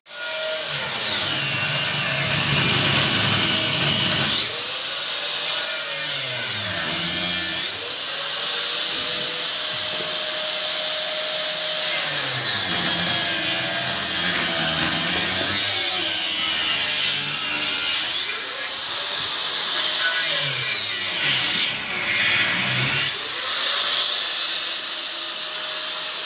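An angle grinder cutting the steel of a concrete mixer pan, which is having its worn-through side plates cut out for replacement. It runs loud and continuous, its pitch dipping and recovering every few seconds as the disc is pressed into the steel.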